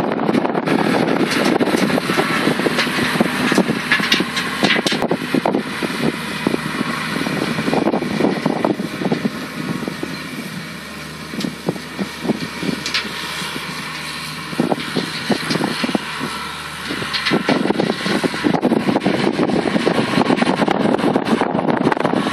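Massey Ferguson 1200 tractor's six-cylinder diesel engine running under load while it pulls a leveller over ploughed ground. It is loudest close by at the start, fades as the tractor works away across the field around the middle, and grows louder again near the end.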